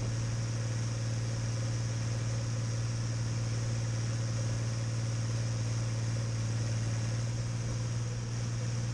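Deutz-Fahr DX6.05 tractor engine running at a steady speed with a constant low hum.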